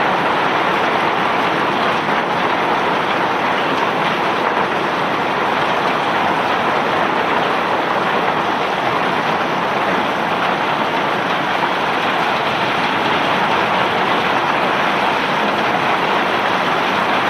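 Steady rushing of bulk rock cargo pouring off a self-unloading barge's conveyor, a continuous even hiss with no breaks.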